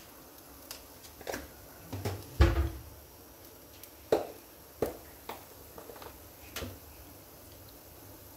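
Kitchen handling noises: a string of sharp knocks and clicks, with the loudest a dull thump about two and a half seconds in, the kind made by containers, lids or utensils being picked up and set down.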